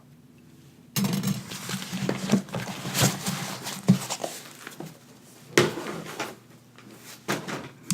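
Handling noise from small objects on a work surface: rustling with scattered light clicks and taps, starting about a second in, with a second short burst a little later.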